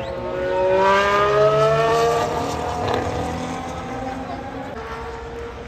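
Formula 1 car's 1.6-litre turbocharged V6 hybrid engine accelerating past at close range, its pitch rising steadily, loudest about one to two seconds in and then fading as it pulls away. Another engine note comes in faintly near the end.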